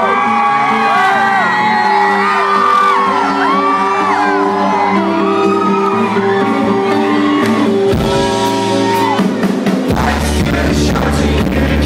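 Live rock band playing a song's opening, with held keyboard-like chords and the crowd whooping and shouting over them. About eight seconds in the drums begin, and shortly after the full band comes in with bass and guitar.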